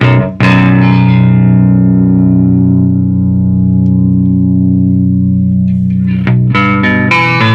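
Electric guitar through a Beetronics Tuna Fuzz pedal and a Marshall Plexi amp, played loud: after a brief break, a fuzzed chord is struck about half a second in and left to ring for about six seconds, its bright top slowly fading, then new chords are struck near the end.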